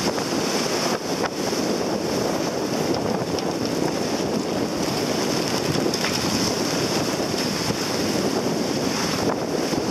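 Strong wind blowing over the microphone, with the steady rush and splash of choppy sea water around a yacht under sail.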